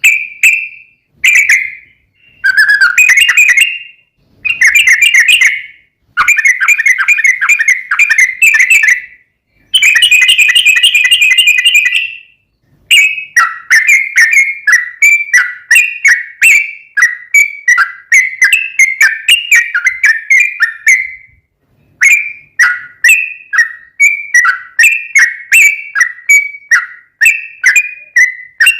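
Yellow-vented bulbul (trucukan) singing loudly. First come separate bubbly phrases a second or two long, then from about halfway a long run of quick repeated chirping notes, about two a second, with one short pause.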